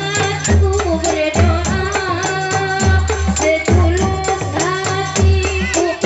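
Ensemble of hand-struck frame drums (rebana) playing a steady rhythm, with sharp slaps and deep bass strokes about once a second, under a woman singing a melody into a microphone.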